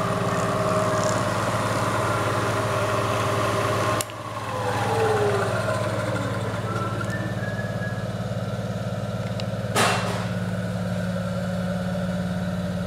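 Vectrax CL Series 9" x 48" milling machine running with a steady hum. About four seconds in, a sharp click is followed by tones that fall in pitch, and another sharp click comes near the end.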